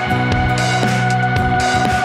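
Intro music with a steady beat under held notes.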